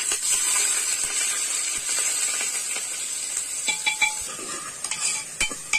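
Chopped onions sizzling loudly as they hit hot oil in a pressure cooker and are stirred, a steady frying hiss. A few clicks and scrapes of the metal spoon against the pot come in over the second half.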